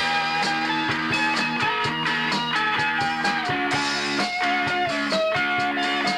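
Rock band playing live without singing: electric guitars holding and changing notes over a drum kit keeping a steady beat.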